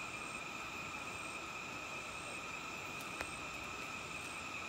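Steady, unbroken high-pitched drone of forest insects, with a single faint click about three seconds in.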